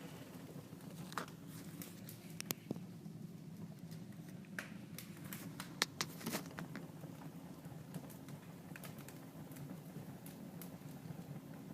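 Wood fire crackling in a fireplace: a steady soft rush of burning with scattered sharp pops and snaps, the loudest about six seconds in.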